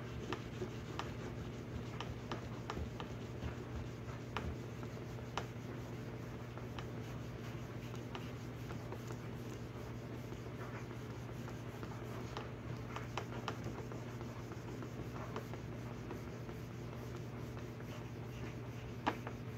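Steel knife blade rubbed back and forth on wet baking soda over a leather pad, a quiet scratchy rubbing with small scattered clicks as the blade is mirror-polished and fine sanding marks worked out.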